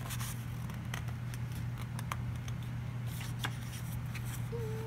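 Paper pages of a picture book being turned and handled by hand: soft rustling, brushing and light clicks over a steady low electrical hum.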